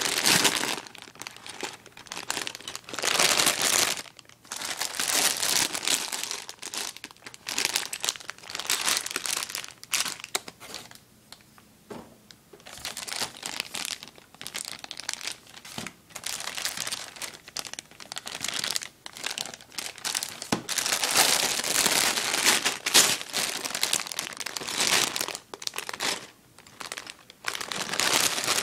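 Sealed plastic bags of Lego Technic parts crinkling as they are handled and shuffled in the box, in irregular bursts with a quieter pause about halfway through.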